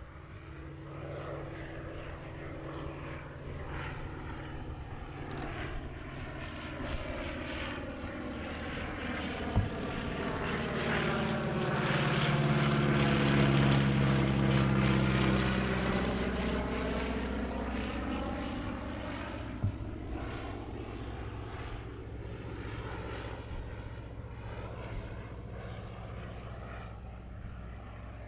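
Focke-Wulf Fw 44 J Stieglitz biplane's Siemens-Halske Sh 14 seven-cylinder radial engine and propeller running in flight: the drone builds to its loudest about halfway through as the plane passes close by, then fades as it climbs away. Two brief sharp clicks, about ten seconds apart, stand out.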